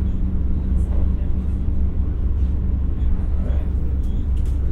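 Interior running sound of an X60 electric commuter train (Alstom Coradia Nordic) under way: a steady low rumble of wheels on rail with a constant hum.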